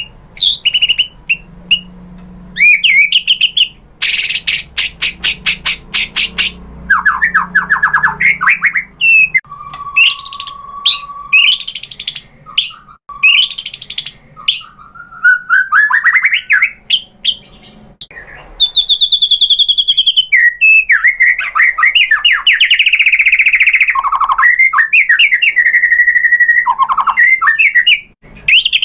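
White-rumped shama (murai batu) singing loudly through a long, varied string of phrases: a fast dry rattle of ticks, a held pure whistle, rising slurred notes, a high steady note and a buzzy trill, one phrase after another with short gaps.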